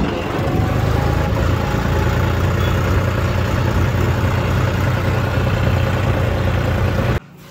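Farm tractor's diesel engine running steadily under way, heard from the driver's seat, with a strong low hum. It cuts off suddenly near the end.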